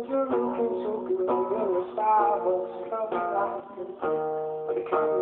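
Acoustic guitar strummed in chords with a person singing along, played live.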